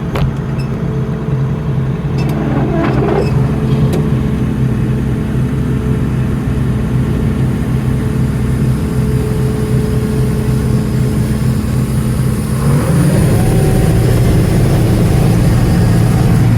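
Engine of farm harvesting machinery running steadily. About 13 seconds in it changes to a louder, slightly different note.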